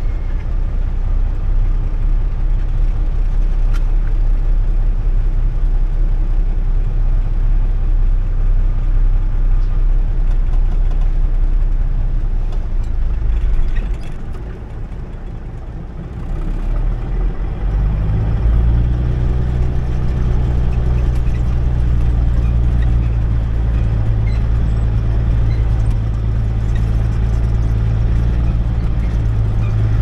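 Farm truck's engine heard from inside the cab while driving slowly. The engine note drops for a couple of seconds about halfway through, then runs steady again with a stronger, deeper hum.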